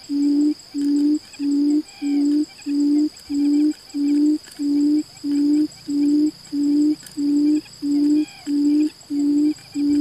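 Quail's low hooting call repeated steadily, about one and a half notes a second, each note about half a second long. Behind it is a steady high insect trill, with a couple of brief higher chirps.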